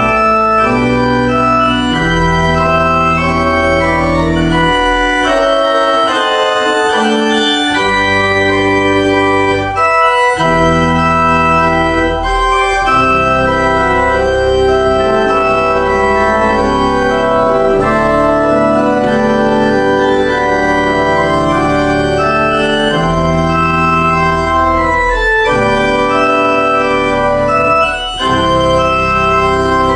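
Church organ played on a two-manual console: full sustained chords moving over a bass line, with short breaks between phrases about ten seconds in and near the end.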